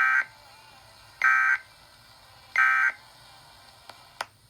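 Emergency Alert System end-of-message signal from a NOAA Weather Radio broadcast: three short bursts of SAME digital data, each a harsh warbling electronic screech about a third of a second long, a little over a second apart, marking the close of the weekly test. Two short clicks follow near the end, the second louder.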